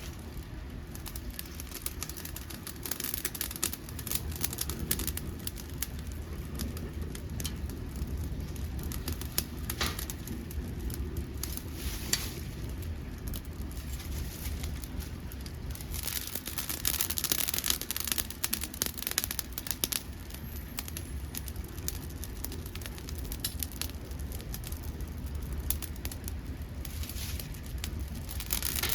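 Dead podocarpus wood crackling and popping as it burns in a homemade pail-can secondary-combustion wood stove. Many irregular sharp pops run over a steady low rumble.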